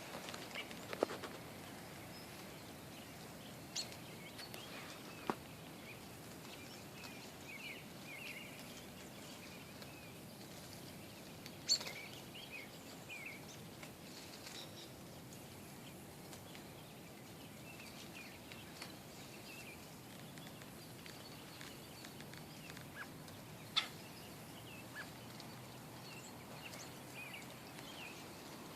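Birds in a holly tree giving short scattered chirps and calls over a low hiss, with a few sharp clicks standing out about four times.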